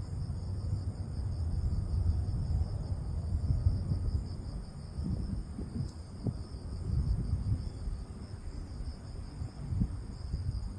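Steady, high chirring of insects over a low rumbling noise on the microphone, with a few soft knocks about halfway through.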